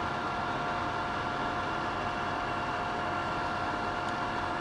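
Steady background hum and hiss with a thin, constant whine, like a small fan running, with one faint tick about four seconds in.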